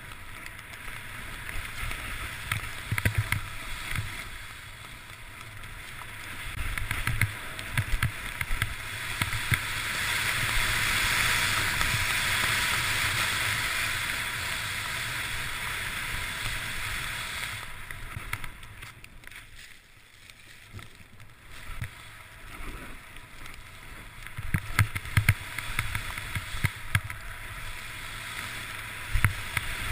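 Steady hiss of snow sliding under a rider descending through powder, with wind buffeting the microphone in low, rumbling gusts. The hiss swells about ten seconds in and drops away around twenty seconds.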